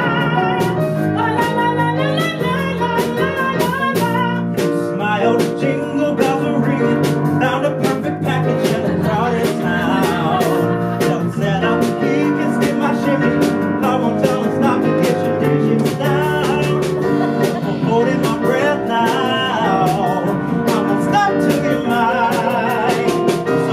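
Live band of piano, electric guitar and drums playing a Christmas pop song, with a woman and a man singing lead, the man's voice in front for much of it.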